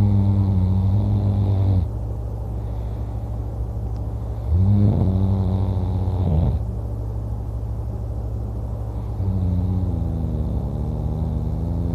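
A person snoring pretty loud in deep sleep: three long, low, droning snores about five seconds apart, the first already under way at the start and ending about two seconds in.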